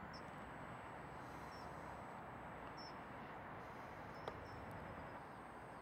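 Faint, steady outdoor background hiss with a few short, high chirps and one sharp click about four seconds in.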